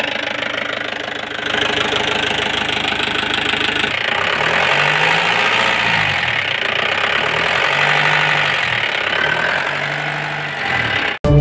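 Mahindra Bolero pickup's diesel engine running steadily at idle.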